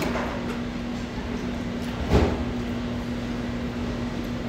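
A steady low hum with one held tone, and a single short knock about two seconds in.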